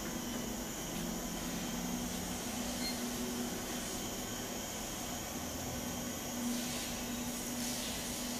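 Steady electric hum with a low tone that swells and fades now and then, from the drive of a Carl Zeiss Contourecord 1600G contour measuring machine as its stylus arm is jogged into position over the part.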